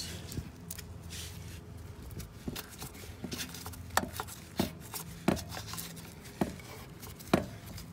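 Scattered sharp clicks and knocks, about eight in all, of hand tools and metal parts being handled while the leak detection pump is unbolted. The loudest come about four seconds in and near the end.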